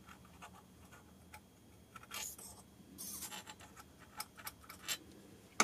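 Quiet, scattered small clicks and ticks of metal suspension-damper parts being handled and fitted together, with a couple of brief scuffs in the middle and a few sharper clicks near the end.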